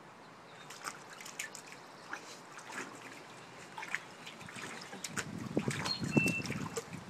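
Shallow water in a plastic kiddie pool splashing and trickling as a 12-week-old Golden Retriever puppy paws at it, with louder sloshing about five seconds in.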